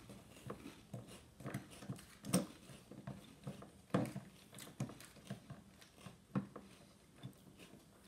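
Someone eating Thin Mints cereal in milk: irregular crunches of chewing and clicks of a plastic spoon in the bowl, loudest about two and a half and four seconds in.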